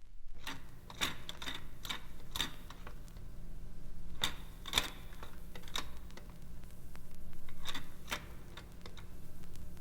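Irregular sharp mechanical clicks and clacks, some with a brief metallic ring, over a steady low machine hum. The sound starts just after a silent gap.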